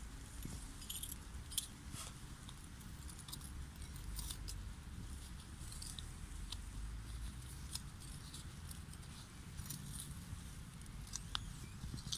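Scattered small clicks, scrapes and rustles of a gloved hand working loose soil and grass and handling a small metal tool around a buried landmine, over a steady low rumble.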